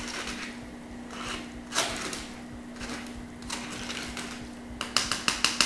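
Wooden spoon tossing spaetzle in a stainless steel mesh strainer: soft scrapes and stirring, then a quick run of light taps near the end. A faint steady hum runs underneath.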